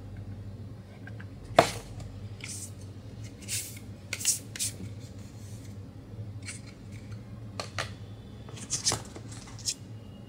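Apple Pencil Pro's card box and plastic tray being handled and opened by hand: a sharp click about a second and a half in, then a series of short scrapes and rustles of card and plastic, over a faint steady low hum.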